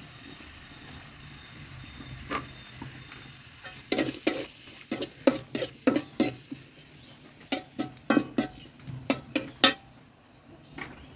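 Chopped onion sizzling in hot oil in a metal karahi. About four seconds in, a metal spatula starts stirring it, clinking and scraping against the pan in a quick run of sharp strokes for about six seconds.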